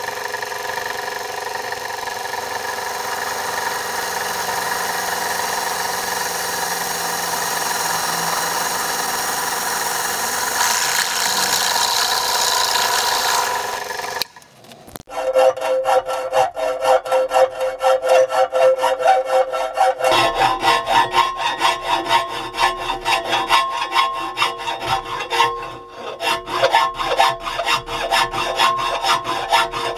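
Pillar drill running and drilling through a steel plate, a steady motor hum with cutting noise, until it stops abruptly about halfway. Then a hand file rasps back and forth on the edge of a slot in the steel plate held in a vise, about two strokes a second, with the thin plate ringing.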